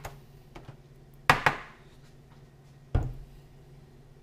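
A metal spoon knocking against a disposable aluminium foil pan while barbecue sauce is spread: two sharp knocks in quick succession about a second in, then one more near three seconds.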